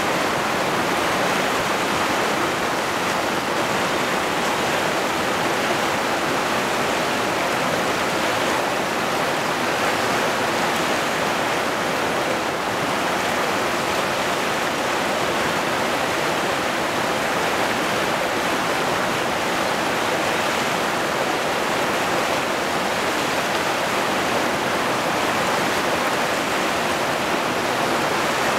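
Steady rush of a fast, muddy river running through rapids over boulders.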